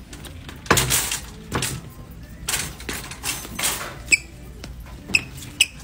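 Red plastic shopping cart being jerked about and shoved along a store aisle, with several rattling scrapes, then three short sharp squeaks near the end.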